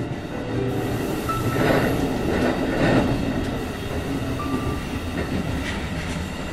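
Electric train running along the track, a rush of rail and running noise with faint clicks. It swells about two to three seconds in, then slowly eases off.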